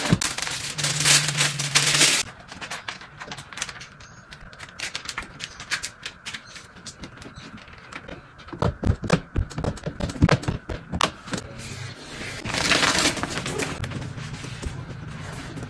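Window tint being fitted to a car door window: a hissing burst for about two seconds at the start and another about 12 seconds in, with a run of sharp clicks and ticks between them as the squeegee works the wet glass, and some dull knocks around 9 to 11 seconds.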